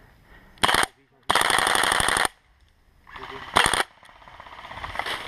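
Airsoft rifle firing on full auto in three bursts: a short burst, then a longer one of about a second, then another short burst.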